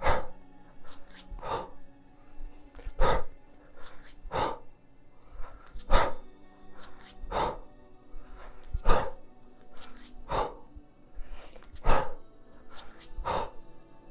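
Short, sharp exhalations at a steady rhythm, about one every second and a half, from a lifter doing repeated kettlebell cleans: a breath out as each bell lands in the rack position.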